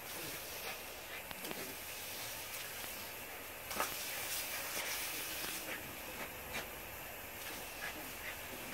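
Lawn sprinkler spraying water with a steady hiss that drops and comes back every couple of seconds, while dogs snap at the spray; scattered small clicks and taps, the loudest a little under four seconds in.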